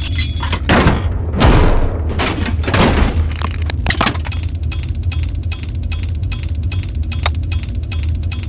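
Steampunk-style metal mechanism sound effects: clanks, rattles and clicks, turning into a run of fast, dense ticking in the second half, over a steady low industrial factory hum.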